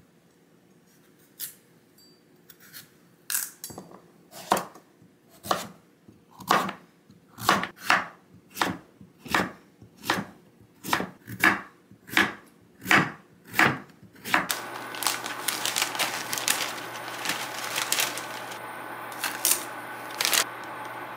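Chef's knife chopping through kabocha squash on a wooden cutting board: sharp knocks, sparse at first, then about two a second and louder. About fourteen seconds in it gives way to the steady hiss of water boiling in a pot, with a low hum and a few light clicks.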